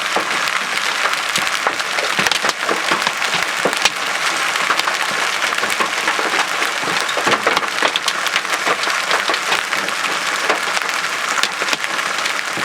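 Giant hailstones, over golf-ball size, hammering the car's roof, bonnet and windscreen, heard from inside the car as a dense, steady din of hard impacts with many sharper individual cracks.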